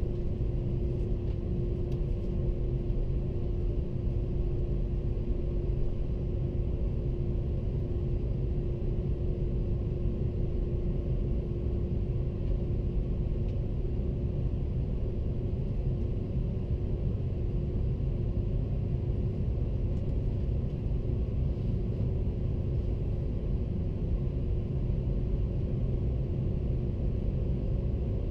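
Airbus A330-300 cabin noise from a window seat: a steady low rumble with a constant hum of one tone above it.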